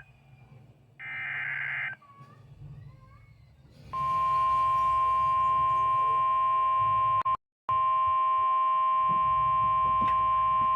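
NOAA Weather Radio alert signal from a radio speaker: a buzzy burst of the SAME digital data header about a second in, then after a short pause the steady single-pitch warning alarm tone, starting about four seconds in and cutting out briefly near the middle. The alarm tone signals that a warning message is about to be read.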